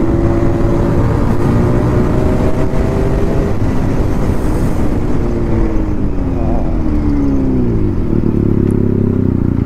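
Motorcycle engine running at a steady, high speed, then slowing: its pitch falls from about five seconds in to about eight seconds in and settles at a lower, steady pitch.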